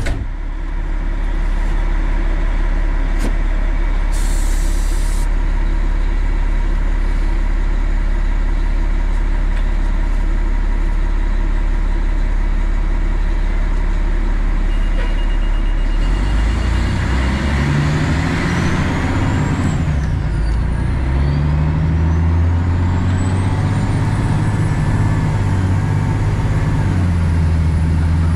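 The diesel engine of a 2003 Pierce Dash fire truck runs steadily, with a short burst of air hiss about four seconds in. A little over halfway through, the truck pulls away with the revs climbing and stepping through gear changes. A siren then starts to wail, rising, falling and rising again.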